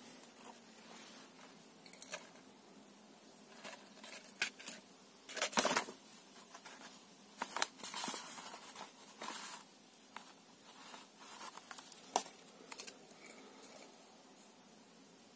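Rustling and crinkling of a rolled paper sheet being handled, with scattered light clicks and knocks.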